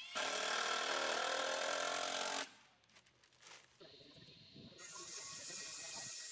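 Cordless drill running against a wooden board for about two and a half seconds, a steady motor whine that rises slightly in pitch at first, then stops abruptly.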